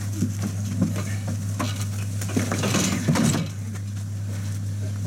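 Scraping, rustling and knocking as a kudu carcass is heaved and dragged up onto the back of a hunting truck, with light clatter against the truck's metal rack and a longer scrape about halfway through. A steady low hum runs underneath.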